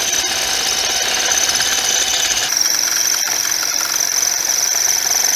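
Power drill running with a steady high whine, its pitch shifting slightly about halfway through.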